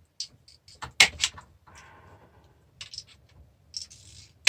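Wire cutters snipping through the leads of a DVD player's transformer: a few sharp clicks, the loudest about a second in, with scraping and rattling of metal parts being handled between them.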